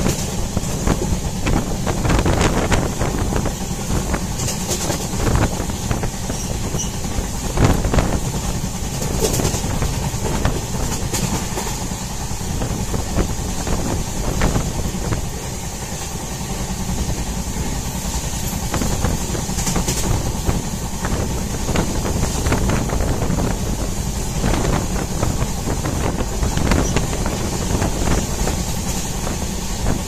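Train running at speed, heard from a coach window: a steady rumble of wheels on rails with irregular clicks and clacks over the rail joints.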